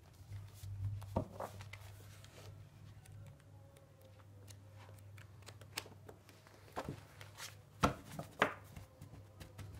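Sheets of sketch paper rustling and snapping as a stack of sketches is leafed through and handled, with scattered crisp flicks, the loudest near the end. A low steady hum runs underneath.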